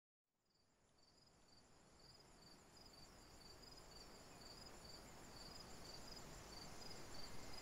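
Crickets chirping in a steady rhythm, about two chirps a second, fading in from silence over a faint low rumble.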